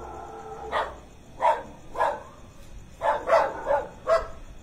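Several dogs barking in short, irregular barks, coming faster in a cluster about three seconds in. The barking was set off by the rumble of the volcano's explosion.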